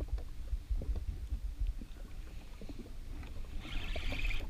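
Low rumble of wind and water lapping at a jet ski's hull, with small irregular clicks as a spinning reel is wound in against a hooked fish. A short hiss near the end.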